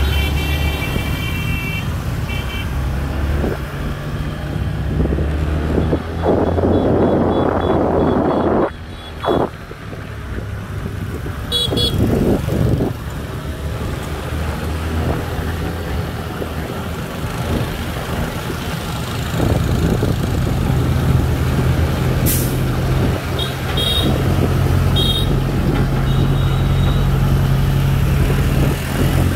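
Road traffic of motorbikes and a truck: a steady low engine drone with a few short horn toots, near the start, about twelve seconds in and near the end. A louder rushing noise runs for a few seconds about six seconds in.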